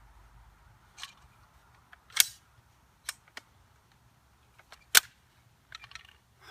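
Sharp clicks and snaps from handling an airsoft gun: two loud snaps about two and five seconds in, with smaller clicks between and near the end.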